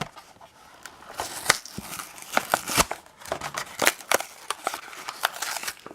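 Packaging of a 2007 Hot Wheels mystery car being opened by hand: irregular crinkling, crackling and tearing with sharp clicks.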